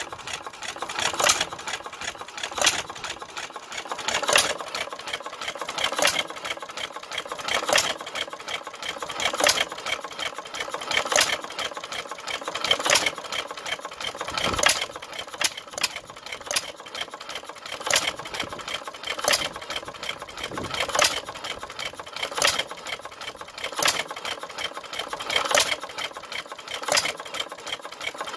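A 1914 International Harvester Famous 1 hp vertical stationary engine running. A loud firing knock comes about every one and a half to two seconds, with a fast mechanical clatter between the firings, as a hit-and-miss engine coasts between power strokes.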